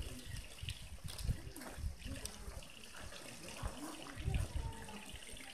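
Outdoor ambience: faint voices of people talking some way off over a steady rushing noise, with irregular low rumbles, strongest about four seconds in.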